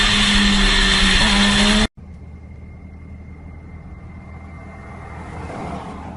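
Motorcycle engine running at a steady speed under loud wind noise, cutting off abruptly about two seconds in. It is followed by the much quieter, steady low road rumble heard inside a moving car, with a faint thin high tone.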